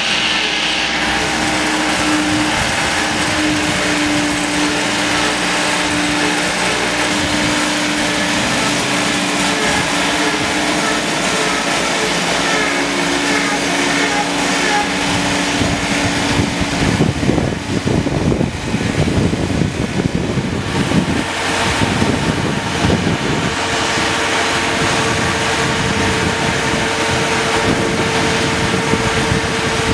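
Engine of a mobile boat hoist (travel lift) running steadily with a humming whine as it lowers a yacht in its slings. The whine steps up in pitch about two-thirds of the way through, after several seconds of rougher, uneven noise.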